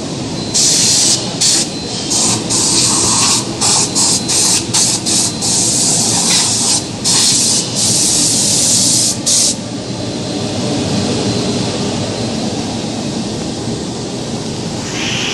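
Aluminium extrusion die blasting machine running, its air blast cutting in and out in repeated hissing bursts for the first nine seconds or so, then the machine running steadily without the blast.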